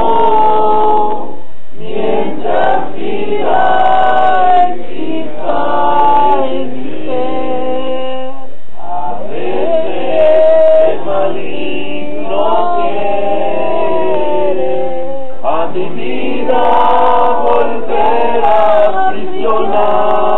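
A group of voices singing a Christian praise song together, in long sung phrases with short pauses between them.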